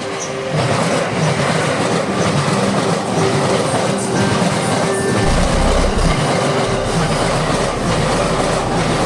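Electric train passing at speed, its wheels clattering over the rail joints. It gets louder about half a second in.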